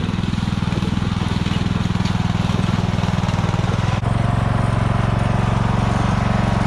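Riding lawn mower engine running steadily under way, with a continuous low firing beat; about four seconds in it gets abruptly louder.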